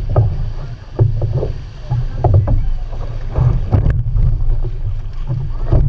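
Six-person outrigger canoe under way at race pace: paddle blades splashing and water rushing along the hull, with splashes every second or so. Under them runs a heavy, steady wind rumble on the microphone.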